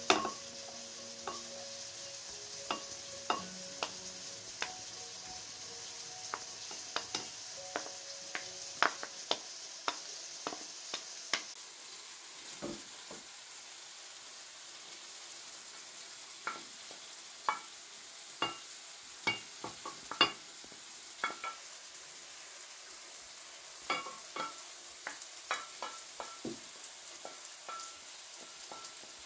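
Utensils clinking and scraping against a ceramic bowl as food is spooned and scraped into it. Sharp clinks come every second or so, with a pause around the middle, over a faint steady hiss.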